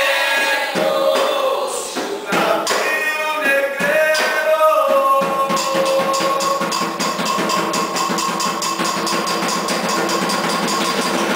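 Music with voices singing a melody over percussion. About five seconds in, the singing gives way to a held chord over a fast, steady drumbeat.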